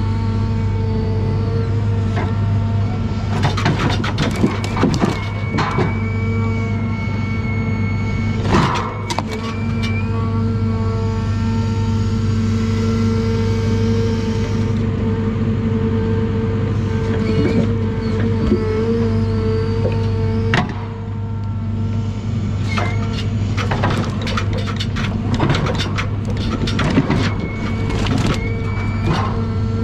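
John Deere 1010G forwarder's diesel engine and crane hydraulics running steadily under load, a constant drone with a higher whine, while spruce logs knock and clatter against each other as the grapple handles them, in several bursts.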